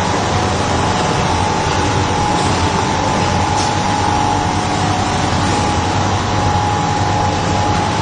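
Machinery of a candy-bar forming and packaging line running: a steady mechanical din with a constant mid-pitched whine through it.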